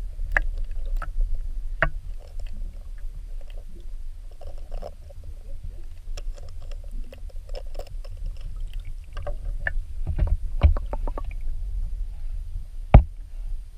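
Muffled water noise heard through an underwater camera housing: a steady low rumble with scattered small clicks and knocks, a cluster of them about ten seconds in and one sharp knock near the end.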